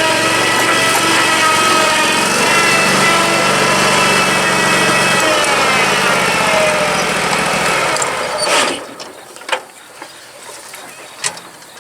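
Dixon zero-turn mower's engine running, its note shifting about halfway through, then shutting off about two-thirds of the way in; a few light knocks and clicks follow.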